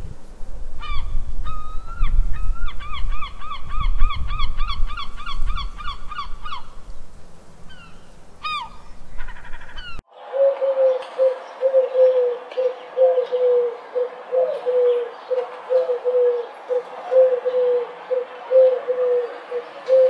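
Animal calls in two parts. First, a run of short honking calls, about four a second, over a low rumble. After an abrupt cut, short low calls repeat steadily about every 0.7 s over a hiss.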